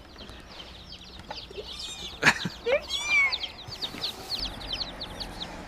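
A box of mail-order day-old chicks (French Copper Marans and Welsummers) peeping, many short high chirps in quick succession. A louder short sound comes about two seconds in, with a higher call just after it.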